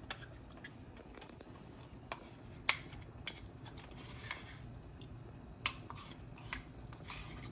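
Cutlery clinking and scraping against dishes: a handful of separate sharp clinks with a few short scrapes between them.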